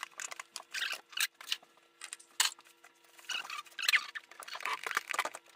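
Fluffy slime being squeezed and kneaded by hand: irregular sticky clicks, pops and squelches, with a few brief squeaks.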